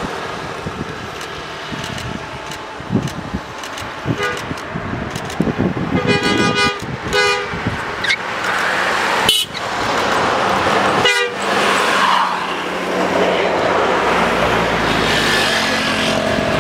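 Bus telolet horn sounding a quick run of chopped, pulsed musical tones about six seconds in, over the engine and tyre noise of passing traffic that grows louder in the second half.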